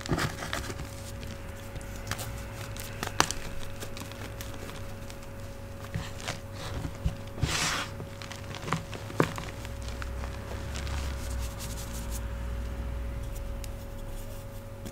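Hands rubbing, scooping and squeezing loose powdered gym chalk: soft scratchy crumbling with scattered sharp little cracks, and a longer hissing crumble about seven and a half seconds in. A steady hum from an old fridge runs underneath.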